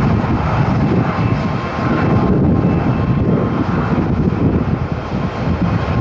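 Jet engine noise from an ANA Boeing 787's Rolls-Royce Trent 1000 turbofans as the airliner rolls along the runway: a steady loud rush with a faint steady whine, and strong wind buffeting the microphone.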